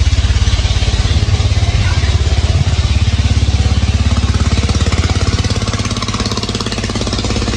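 An engine running steadily at idle, with a fast, even firing beat.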